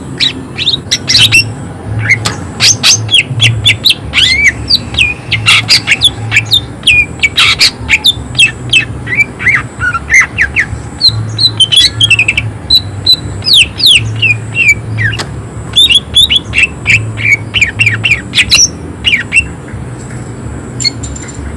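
Cucak ijo (green leafbird) singing a fast, harsh run of sharp chattering notes and quick down-slurred whistles, packed closely together and thinning out near the end.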